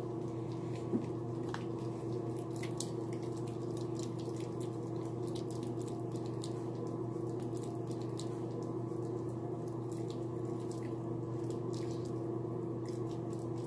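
Water dripping and splashing in a sink while wet hands work foaming face wash over the face, in scattered small splashes and squelches. A steady low hum runs underneath.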